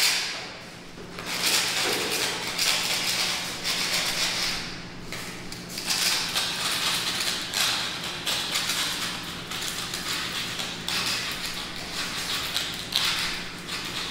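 Handheld scraper blade scraping stuck-on paper residue off a bare concrete floor in repeated, irregular rasping strokes.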